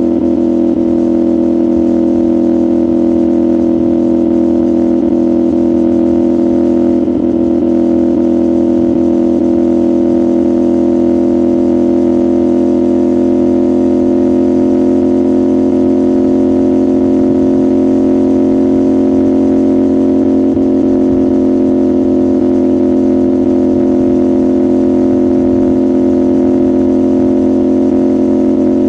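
CFMoto 450SR's parallel-twin engine and exhaust running at steady, nearly constant revs, as in a cruise.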